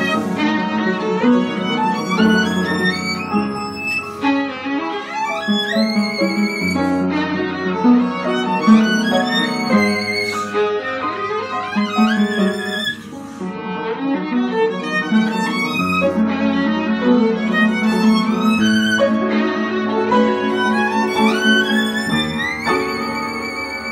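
Violin playing a slow lyrical melody with vibrato over piano accompaniment, holding a long high note near the end.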